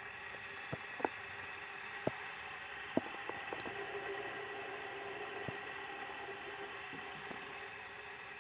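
Copper fidget spinner spinning on its bearing, a faint steady whir, with several sharp clicks scattered through it as it is handled.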